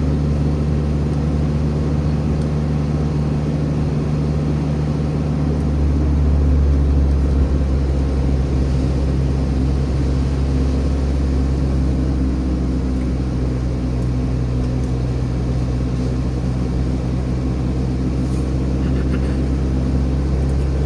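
Motor vehicle running on the road, heard from inside: a steady low engine and road hum that grows louder about six seconds in and then holds.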